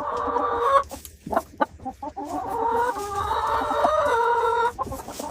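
Chickens clucking, with a short call at the start and a long drawn-out rooster crow of about two seconds in the second half.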